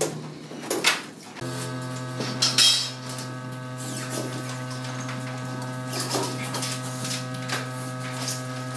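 A steady electrical hum starts suddenly about a second and a half in and holds. Light metallic clinks and knocks from work on the ceiling fall over it, the loudest near the start.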